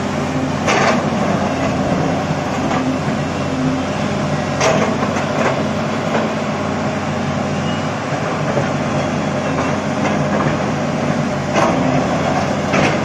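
XCMG XE215 crawler excavator's diesel engine running steadily under working load as the bucket digs into a rock face. A few sharp knocks and scrapes of the bucket on rock come through: about a second in, about five seconds in, and twice near the end.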